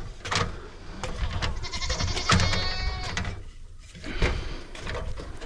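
A drawn-out bleating animal call lasting about a second, in the middle, among a few sharp knocks.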